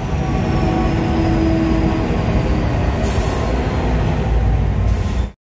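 Kenworth W900 semi truck driving at highway speed, heard from the cab: a steady diesel engine drone mixed with road and wind noise, with a brief rush of hiss about three seconds in. The sound cuts off suddenly near the end.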